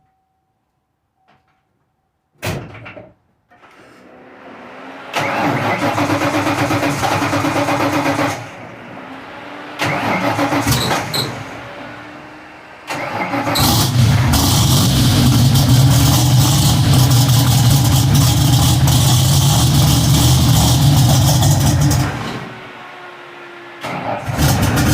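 A 1986 Mustang's 5.0 V8 being started after a single knock. It runs at a fast idle, settles, is revved briefly, then runs louder for about eight seconds before dropping back to idle near the end.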